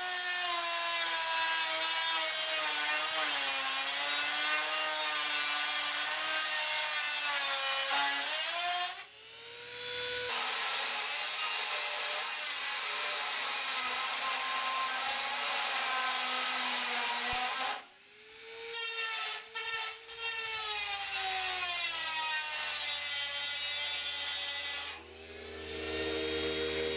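Inexpensive Dremel-type electric rotary tool with a metal cutoff wheel cutting through aluminium aircraft sheet. It makes a high-pitched whine over a grinding hiss, its pitch sagging and wavering as the wheel bites into the metal. The sound drops out briefly about a third of the way in, a few times around two-thirds of the way, and again near the end, each time coming back up to speed.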